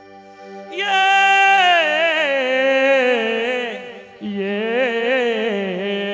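A male singer's wordless opening phrase in a Tamil folk song: long held, wavering notes that slide downward, in two phrases with a short break about four seconds in. Under it runs a steady sustained backing drone.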